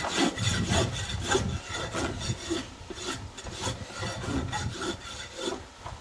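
Farrier's rasp dressing a horse's hoof wall: repeated back-and-forth scraping strokes, about two to three a second, finishing the trim and smoothing away the flares.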